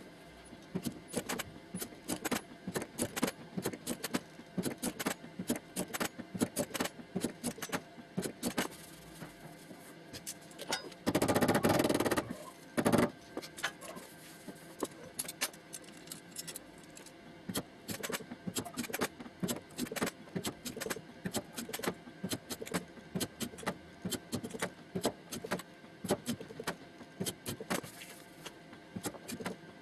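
Quick, irregular light metallic taps of body-shop panel beating on the steel skin of a Nissan Skyline R34 door as its dents are worked out. About eleven seconds in comes a louder noisy burst lasting about a second, then one harder knock.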